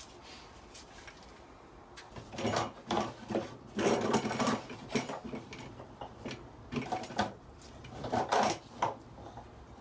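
Plastic flexible corrugated shower waste hose and drain fitting handled and pushed through a hole in a wooden floor during a test fit: irregular scraping and rattling, starting about two seconds in.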